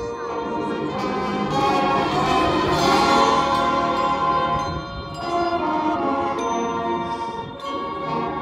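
Marching band playing sustained brass chords that build to a peak about three seconds in and ease off around five seconds.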